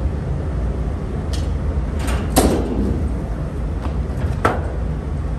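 Caster wheels of a rotisserie cart carrying a truck cab rolling over a steel grate floor: a steady low rumble with a few sharp clunks, the loudest about two and a half seconds in.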